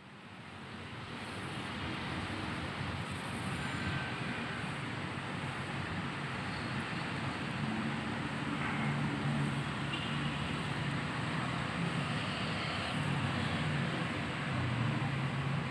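Compressor-fed paint spray gun spraying oil paint onto a wall: a steady hiss with a low motor hum beneath it, which swells over the first couple of seconds and then holds.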